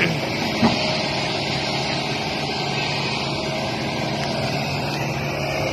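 Kobelco SK200 excavator's diesel engine running steadily while the boom and bucket move, with one short knock about half a second in.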